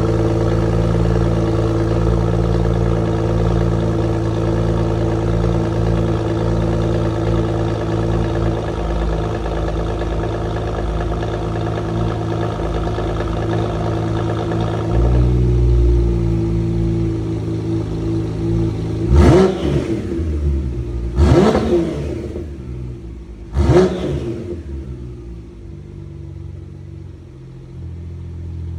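Porsche 991 Turbo S twin-turbo flat-six with a Sasaki aftermarket exhaust, idling steadily; the idle steps down a little about halfway through. It then takes three quick throttle blips about two seconds apart, each revving up sharply and falling straight back, and settles to a quieter idle.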